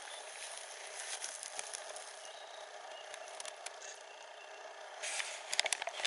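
Outdoor background hiss with scattered faint ticks, then a brief cluster of louder sharp crackling clicks about five seconds in.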